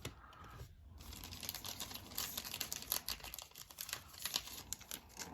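Football trading cards being handled: faint, quick rustling and light clicking of the glossy cards sliding over one another.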